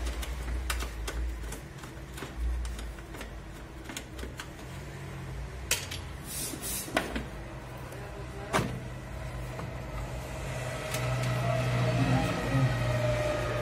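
Scattered clicks and knocks of hands handling a wire and parts in a car's engine bay, with a steady low hum that grows louder near the end.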